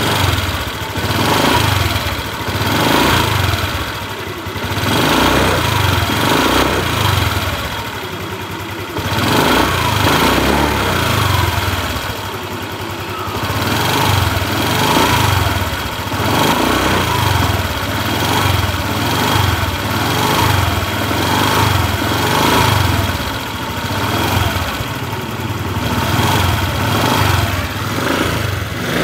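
Honda Vario 150 scooter's single-cylinder engine running, its level rising and falling every second or two. The engine note is slightly rough, which the mechanic says is characteristic of the 2021-on model.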